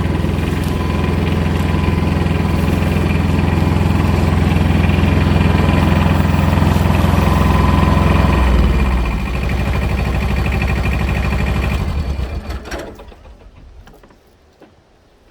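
An engine running steadily and loudly. About eight and a half seconds in it slows to a lower pitch, then winds down through a few uneven pulses and stops about twelve to thirteen seconds in.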